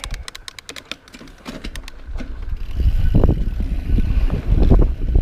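Mountain bike setting off and riding down a steep dirt trail. A quick run of sharp clicks comes first, then from about two seconds in a low rolling rumble of tyres and wind builds and grows loud as the bike picks up speed downhill.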